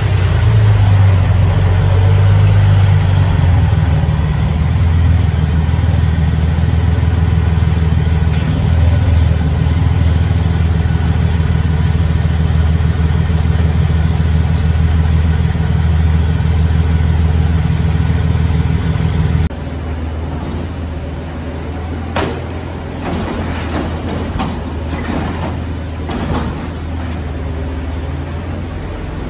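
Diesel engine of a Mercedes-Benz refuse truck running loudly and steadily as the truck manoeuvres. About two-thirds of the way through the level drops abruptly to a quieter engine run, with several sharp metallic knocks as a wheelie bin is handled at the rear bin lifter.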